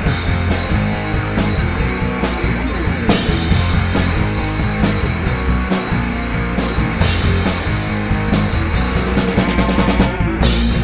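Live rock band playing: electric guitar, electric bass and a drum kit driving a steady beat, with cymbal washes twice.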